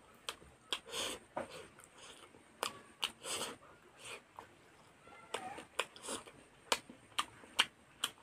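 Close-miked eating sounds: a person biting into and chewing a piece of curried chicken and rice eaten by hand, with wet mouth smacks and clicks at irregular intervals.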